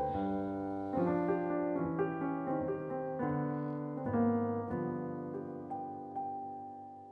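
Soft background piano music: chords struck about once a second, ringing on and fading out toward the end.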